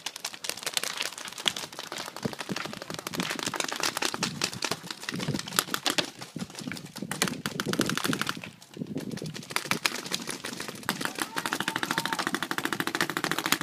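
Paintball markers firing rapid strings of pops, several guns at once making a dense rattle of shots. There is a short lull about eight seconds in, then steady rapid fire again.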